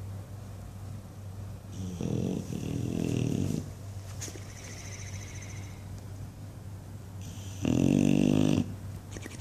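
English Bulldog snoring in its sleep: two long, loud snores, the first about two seconds in and lasting over a second and a half, the second shorter, near the end.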